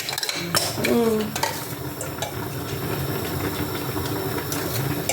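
A utensil clicks against a cooking pot a few times in the first second or so. Then comes a steady hiss of food cooking in the pot.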